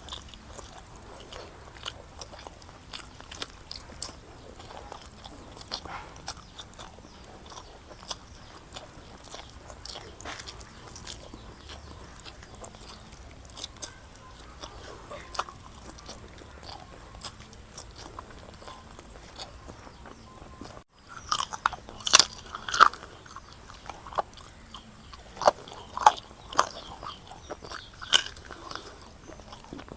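Close-miked chewing and biting of a biryani meal: many small wet mouth clicks and crunches. After a brief break a few seconds past two-thirds of the way through, the bites come louder and sharper.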